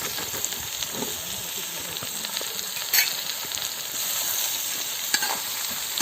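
Finely chopped onions sizzling and frying in hot coconut oil with ginger and garlic in a bronze uruli, with a steady hiss. A sharp clink about halfway and a smaller one near the end, from a utensil knocking the pot while stirring.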